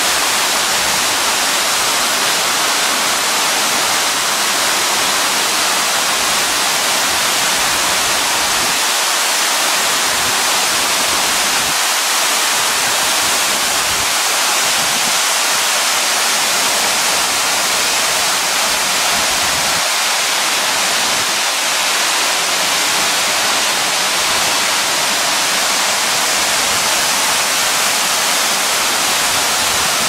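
Waterfall pouring down a rock cleft into a pool, a steady, loud rush of falling water that holds unbroken throughout.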